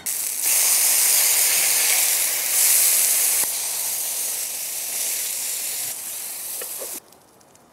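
Burger patties sizzling on a flat-top griddle: a steady hiss that gets louder and softer a few times and cuts off near the end.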